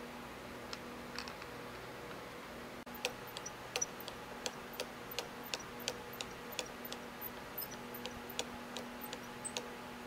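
Sharp light metallic clicks, unevenly spaced at roughly two a second, as the cross-feed handwheel and graduated dial are fitted onto the feed screw of a South Bend lathe saddle and handled. A steady low hum runs underneath.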